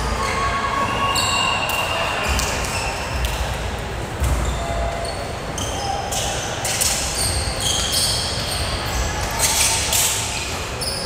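Volleyball gym ambience on a hardwood court: sneakers squeaking briefly several times, a ball thudding now and then, and players' voices carrying in a large hall.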